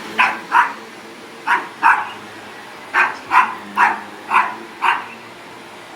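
Dog barking repeatedly, about nine sharp barks in short runs, in reaction to the vacuum cleaner, which it does not like.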